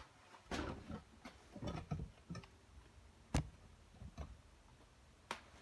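Faint, irregular clicks and knocks of hand tools being moved about while someone searches through them, with one sharp click about three and a half seconds in.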